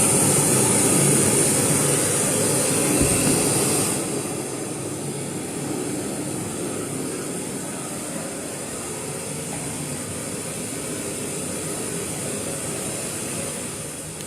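Portable party speaker switched to FM radio mode, putting out loud untuned static hiss. The hiss starts suddenly and drops in level about four seconds in.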